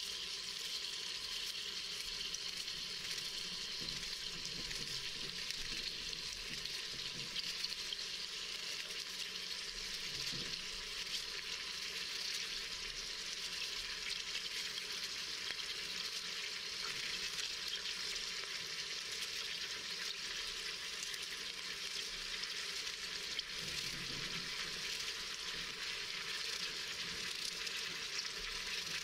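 Steady sizzling of meat and sliced onion frying in an Instant Pot's inner pot.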